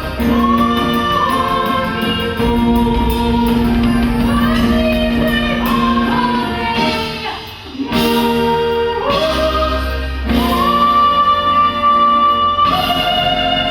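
Live stage-show music: a powerful female lead voice singing long held notes with swoops, backed by a choir and brass over a band.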